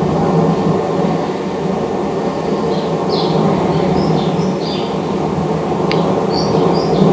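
Steady low rumble of the La Palma volcanic eruption picked up by a live-stream microphone, with short, high bird chirps scattered over it from about two and a half seconds in and one sharp click near the end.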